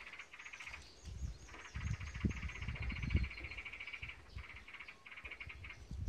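A steady, fast trill that breaks off briefly a few times, with a few high bird chirps over it in the first half and low rumbling on the microphone.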